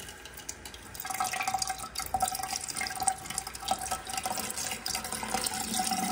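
Bathroom sink faucet running a thin stream of water into the basin, splashing steadily; the flow gets louder about a second in.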